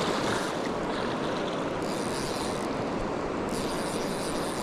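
Steady rush of river water flowing over rocks, with a brighter hiss that swells twice.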